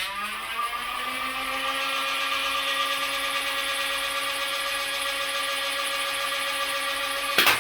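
Small electric motor of a disassembled electric Nerf blaster spinning up over about a second, then running at a steady high whine. A sharp loud click sounds near the end.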